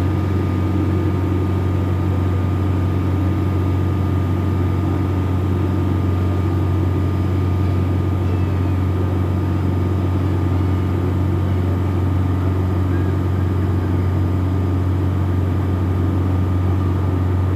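A boat's engine running steadily: a constant low drone with a faint steady whine above it and no change in speed.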